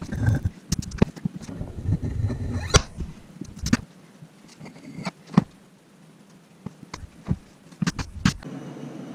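Clicks and knocks of workbench handling: MDF squares on a threaded steel rod, with a wood-glue bottle being squeezed and set down, busiest in the first few seconds. A steady low hum starts near the end.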